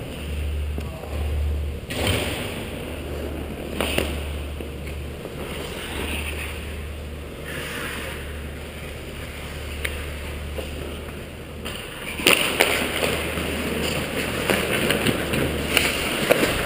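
Ice skate blades gliding and scraping on the rink, heard from a helmet-mounted camera over a steady low hum. From about twelve seconds in the scraping grows louder and sharper, with scattered clicks and knocks.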